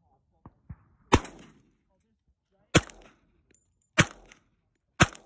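Four single shots from a Glock pistol, spaced a second or more apart. Each is a sharp crack with a short trailing echo. Two faint clicks come just before the first shot.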